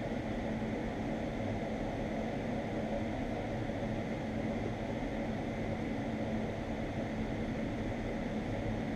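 TIG welding arc fusing two extra-heavy 5/8 steel nuts together: a steady, even hiss with a low hum under it.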